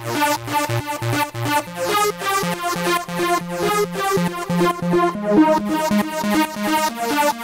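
Supersaw trance lead from a Novation V-Station soft synth playing a fast, rhythmic riff of short notes. Its sound is thickened with chorus and delay and made crunchy by overdrive distortion.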